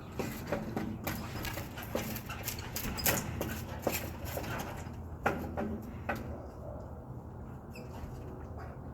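A dog scratching and scrabbling with its claws to get free, a quick run of scrapes, clicks and knocks that thins out for a couple of seconds near the end.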